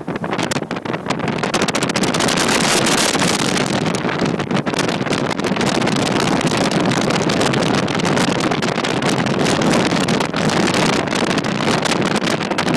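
Wind buffeting the microphone over the steady rushing noise of a Chaparral motorboat running at speed.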